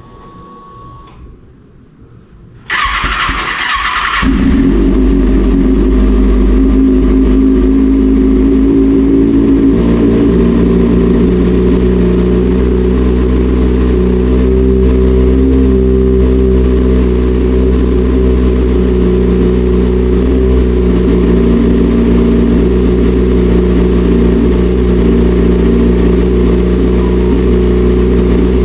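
Kawasaki ZX-6R's inline-four engine cranked on the electric starter about three seconds in. It catches after a second or so and then idles steadily.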